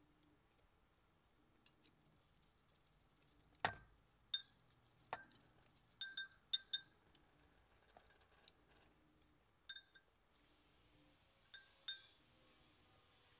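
Metal spoon and fork clinking against a ceramic bowl as a salad is tossed: about a dozen light, irregular clinks, each with a brief ring, the loudest about four seconds in.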